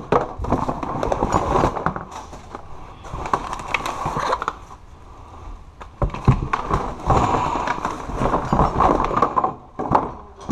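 Hands rummaging through a plastic storage tote of clutter: items clattering and knocking against the plastic, with bags and papers rustling and crinkling. It quietens briefly in the middle, then the clatter picks up again.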